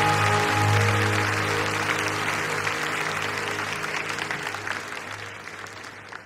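A worship band's final sustained chord dies away as the audience applauds, and the whole recording fades out steadily.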